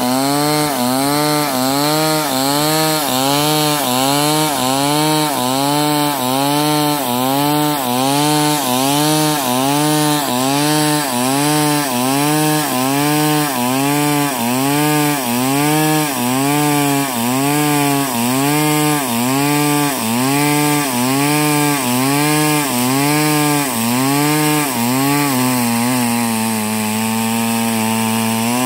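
Two-stroke chainsaw ripping lengthwise along the grain of a large squared log. The engine note dips and recovers about once a second as the chain is rocked into the cut. Near the end it settles into a steadier, lower note.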